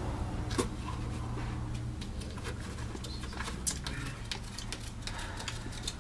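A man gulping down a Slurpee from the cup, a run of swallows and small wet clicks, over a steady low hum.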